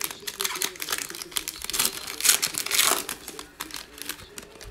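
Foil wrapper of a basketball trading card pack crinkling as it is torn and pulled open by hand, loudest around the middle and dying down near the end.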